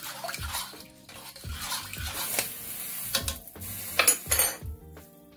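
A metal spoon stirring rice and water in a stainless-steel pot, swishing the water and clinking against the pan several times, with the loudest clink about four seconds in.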